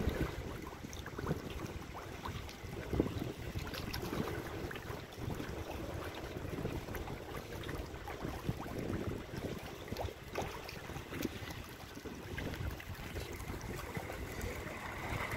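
Wind on the microphone over lapping water: a steady, fluctuating rumble and hiss with a few faint knocks.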